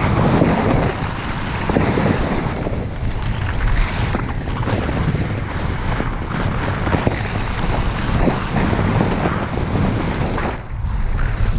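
Wind rushing over a skier's GoPro microphone while skiing downhill, with skis hissing and scraping over packed snow; the rush dips briefly near the end.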